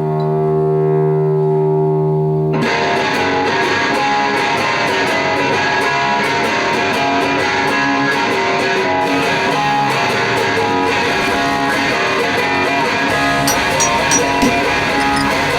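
Intro music: a held low chord, then about two and a half seconds in a distorted electric-guitar rock track with a steady beat kicks in.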